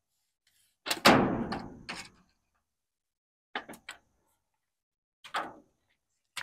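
A loud bang with a ringing decay about a second in, followed by a few lighter knocks.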